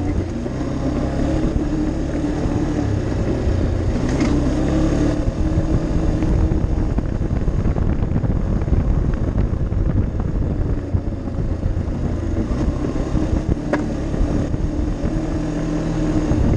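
ATV engine running steadily as the four-wheeler rides along a dirt trail, with a couple of brief knocks about four seconds in and again near the end.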